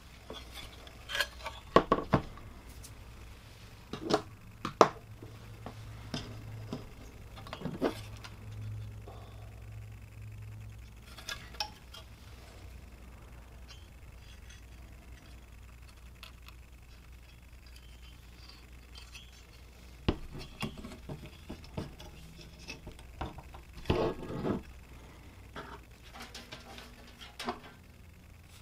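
Scattered light clicks and knocks of a DVR circuit board being handled and turned over on a cutting mat while a replacement capacitor's legs are fitted into its holes. The sharpest knocks come about 2 s and 5 s in, with another cluster near 24 s.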